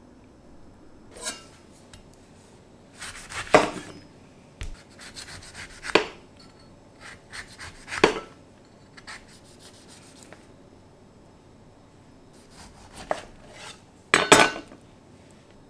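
Kitchen knife slicing the peel and segments off a grapefruit, the blade knocking and scraping on a wooden cutting board in a handful of separate strokes a second or two apart.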